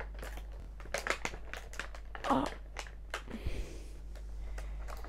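Clear plastic packaging crinkling and crackling as fingers pick at the sellotape holding it, with one brief louder sound about two seconds in.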